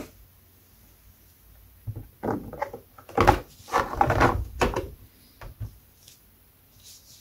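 Plastic 1:10 RC car body shell being handled and set down over the chassis: a cluster of knocks and rattles from about two seconds in to about five, then a couple of small clicks.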